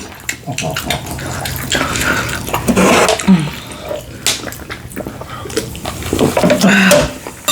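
Close-miked eating sounds: chewing with wet, smacking mouth clicks, and a few short low murmurs in between.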